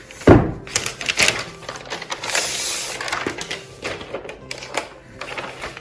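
Packaging being handled as a laptop is lifted out of its box: a thump about a third of a second in, then scattered clicks and knocks, with a longer rustle near the middle.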